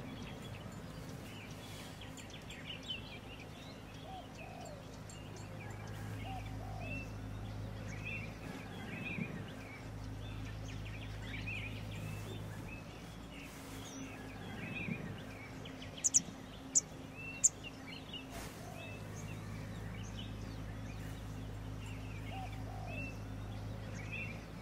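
Small wild birds chirping and calling on and off over a steady low hum, with four sharp, high-pitched calls in quick succession a little past the middle, the loudest sounds.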